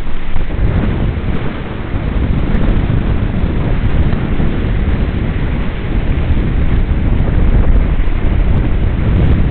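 Heavy wind buffeting the microphone over the rush and spray of water along the hull of a Hobie 16 catamaran sailing fast.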